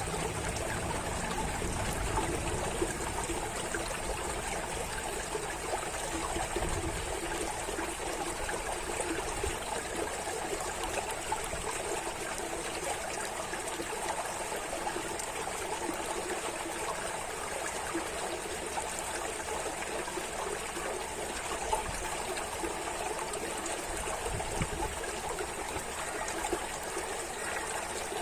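Water running and trickling steadily, like a small stream, with a fine busy splashing and no change in level.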